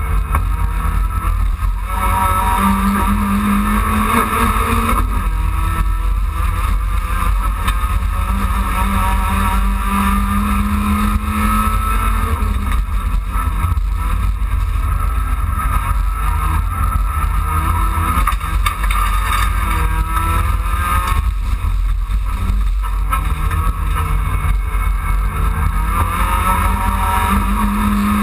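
Dacia Logan race car's engine heard from inside the cabin, pulling hard with the revs climbing and dropping several times as it shifts through the gears, over a heavy, constant low rumble.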